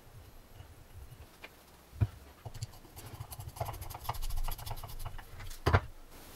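Small screwdriver driving a lock plate screw into a steel flywheel: light metal scraping and clicks, with a quick run of fine ticks in the middle and a sharper click about two seconds in and another near the end.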